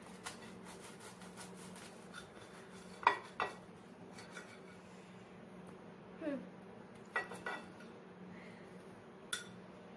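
Table knife sawing through a grilled sandwich on a ceramic plate: a light scraping crunch of toasted bread, with a few sharp clinks of the blade against the plate, over a steady low hum.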